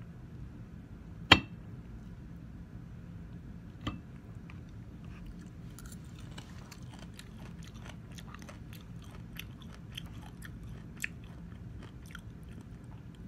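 Close-up chewing of a crunchy kimchi-style pickle, heard as many small crisp crunching clicks. Before the chewing there is a sharp knock about a second in and a softer knock a few seconds later.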